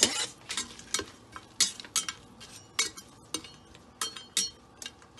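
A stirring utensil clinking and scraping against the stainless steel inner pot of an Instant Pot while onions and spices are stirred in oil: irregular sharp clinks, a couple each second.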